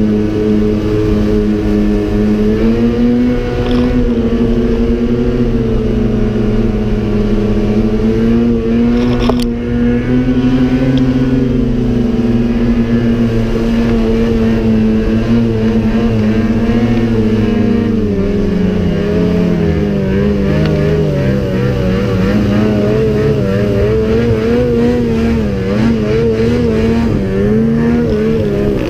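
Ski-Doo Summit snowmobile's two-stroke engine running under way across snow. Its pitch rises a few seconds in, holds high, then drops and wavers up and down near the end as the throttle is eased on and off.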